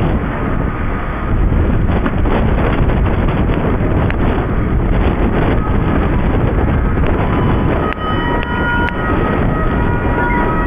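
Loud, steady low rumbling noise with wind on the microphone. From about seven seconds in, emergency-vehicle sirens start up, several steady tones stepping between pitches.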